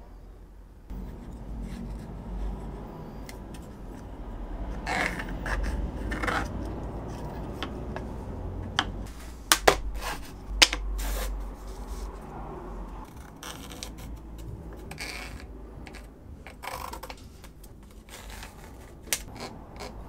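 Thin kydex plastic sheet being handled on a wooden workbench: scraping and rubbing with several sharp clicks and taps, the loudest about ten seconds in, over a low steady hum.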